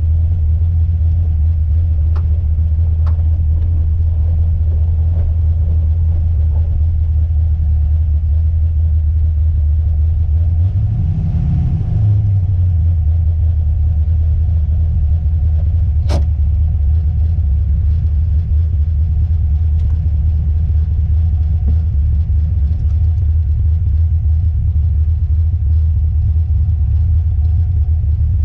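Steady low drone of a car driving, swelling briefly about eleven seconds in, with a few sharp clicks, the clearest about sixteen seconds in: the clicking from the rear of the car over bumps, which the owner thinks may come from the coilovers.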